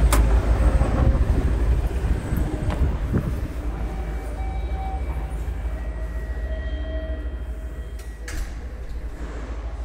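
A train rumbling past and fading away, with a few faint steady squealing tones partway through.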